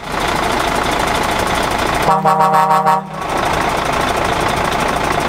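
Heavy truck engine running steadily. About two seconds in, an air horn gives one blast of about a second.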